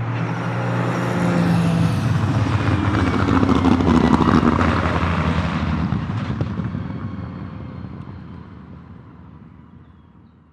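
Aston Martin Vantage GT3 race car's Mercedes-AMG 4.0-litre twin-turbo V8 at speed, passing by. It is loudest about four seconds in, then fades away as the car pulls off.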